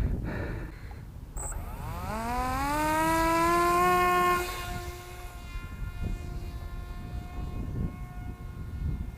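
Small brushless electric motor (BR1806 with a 5040 prop) of a foamboard RC jet whining. About two seconds in it rises steeply in pitch as the throttle is opened, and it is loudest near four seconds. It then cuts back suddenly to a fainter, steady whine. Wind buffets the microphone throughout.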